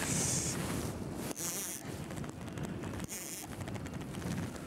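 Baitcasting reel's drag buzzing in three short high-pitched bursts as a heavy pike pulls line off against the bent rod, over wind noise.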